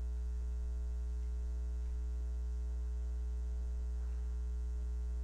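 Steady low electrical hum with evenly spaced overtones, mains hum on the recording, unchanging throughout.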